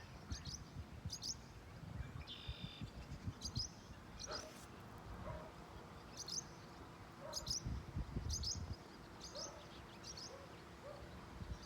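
A small songbird chirping: short, high chirps repeating irregularly, about one or two a second, with a brief whistled call about two and a half seconds in. Low rumbling sits underneath.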